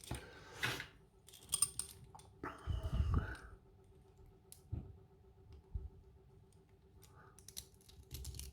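Scattered small clicks and taps of metal lock parts being handled as a pin-tumbler cylinder is taken apart, with a slightly louder rustle about three seconds in.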